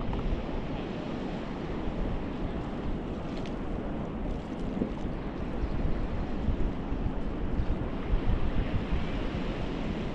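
Wind blowing across the microphone, with a steady wash of sea waves on the beach.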